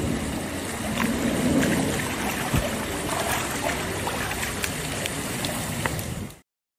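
Pool water sloshing and dripping as a person wades through shallow water, over a steady noisy rush with small splashes and drips scattered through it. It cuts off abruptly near the end.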